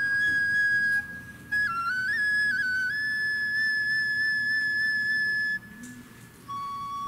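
Background music: a solo flute melody in long, high held notes that step up and down, broken by two short pauses between phrases.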